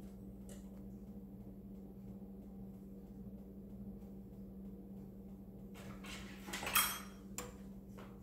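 Metal kitchen utensils clinking and clattering a few times about six to seven seconds in, over a faint steady low hum.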